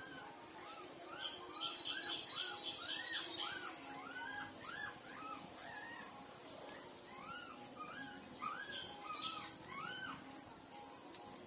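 Newborn puppies squeaking and whimpering while they nurse: a string of short, high squeaks, each rising and falling in pitch, two or three a second.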